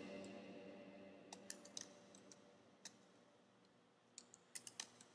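Faint computer-keyboard key clicks: a few scattered taps, then a quick run of several near the end.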